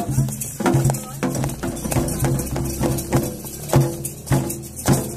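Hand drums beating a steady, driving rhythm, the strong beats a little under twice a second, with lighter percussion between them: Afro-Brazilian ritual drumming for Xangô.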